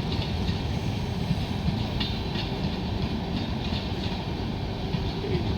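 Passenger coaches of an express train rolling past, wheels clicking over rail joints in a repeated clatter over a steady low rumble.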